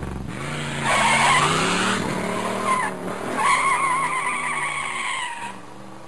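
A car peeling out: the engine revs up and the tyres squeal twice, the first time about a second in and the second time from the middle for about two seconds, with a wavering pitch.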